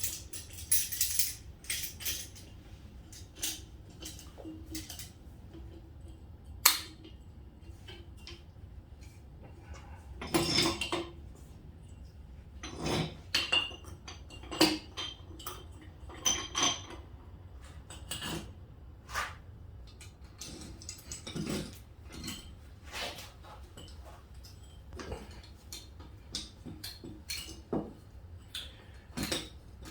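Irregular metal-on-metal clinks, knocks and scrapes of hand tools, a spark plug socket and vise grips, working loose the top cap of a Harley-Davidson Street Glide front fork tube. One sharp clink stands out about seven seconds in, with a busier run of clatter a few seconds later.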